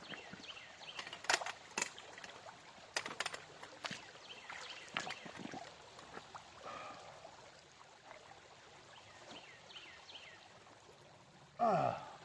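Water splashing and pouring with scattered knocks and clatters as the concentrate is washed out of a gold-prospecting sluice's mats into a bucket. Near the end there is a brief louder sound that falls in pitch.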